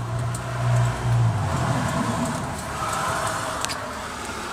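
A motor vehicle on the street: a steady engine hum fades out about a second and a half in, followed by a swell of passing road noise.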